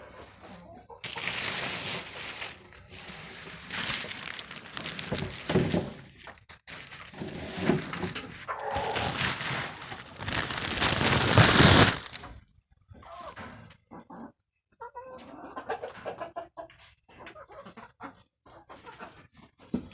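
Chickens clucking and calling, loud and nearly continuous for about the first twelve seconds, then quieter and in short scattered bits.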